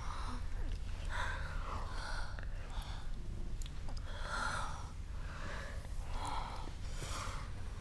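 A woman's heavy breathing with soft gasps, a breath roughly every second, over a steady low hum.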